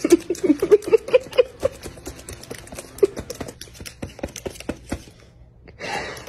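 A pet eating, with quick clicking crunches and chews and short squeaky little sounds in the first second and a half. There is a brief rush of noise near the end.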